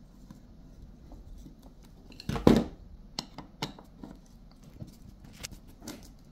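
Hand-tool handling on an opened steam iron: a single louder knock about two and a half seconds in, then small metallic clicks and scrapes as a screwdriver works a screw in the soleplate assembly.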